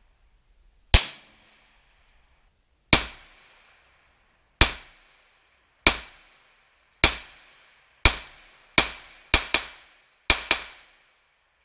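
Smith & Wesson M&P 2.0 pistol firing eleven shots, each with a short ringing echo. They start a second or more apart, come quicker, and end in two fast pairs.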